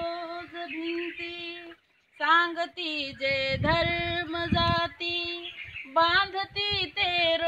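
A woman's voice singing a song in long, held notes, with a brief pause about two seconds in.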